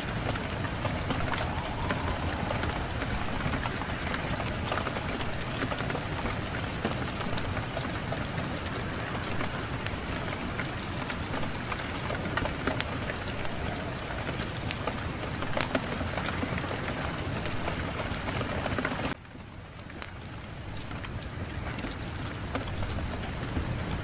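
Fireplace fire crackling with steady, dense pops and snaps over a low rumble of wind. About nineteen seconds in the sound drops away suddenly, then swells back up over a few seconds.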